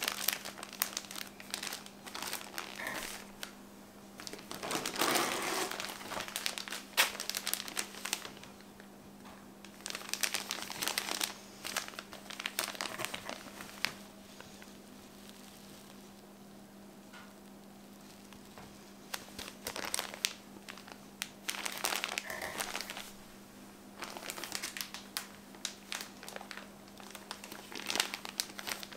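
Plastic packaging bags crinkling and crackling as they are handled, in spells of a few seconds with pauses between them, quieter for a few seconds midway.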